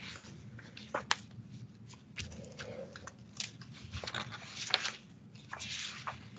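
Room noise of a quiet classroom: scattered small clicks and rustles, irregular and short, over a low steady hum.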